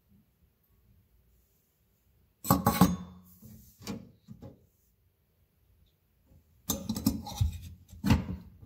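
Stainless steel sink basket strainer clinking and rattling against the metal drain body as it is dropped into place, a sharp cluster of clinks about two and a half seconds in, a few lighter knocks around four seconds, then another run of clinking near the end as it is handled in the drain again.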